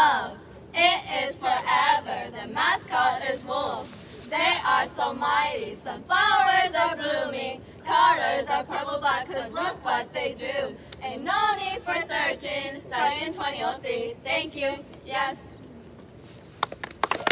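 A group of young women chanting together in unison, line after line with short breaks between phrases, stopping shortly before the end.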